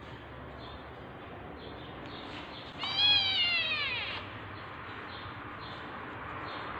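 A cat meowing: one loud call about three seconds in that slides down in pitch over a little more than a second. Faint, short, high squeaks come now and then around it.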